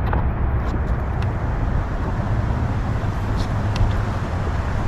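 Boat motor running steadily with a low rumble, with a few faint clicks over it.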